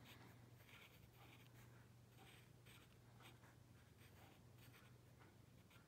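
Faint, repeated strokes of a pencil scratching on sketchbook paper, over a steady low hum.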